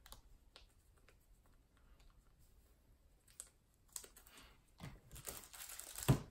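Trading cards being handled on a table: light scattered clicks and taps, then about four seconds in a foil card-pack wrapper crinkling as it is torn open, with a sharp thump near the end.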